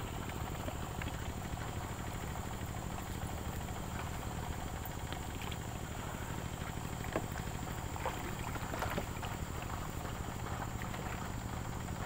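A river raft (lanting) moving upstream: a steady low rumble of water with scattered light knocks and taps, one slightly louder knock about seven seconds in.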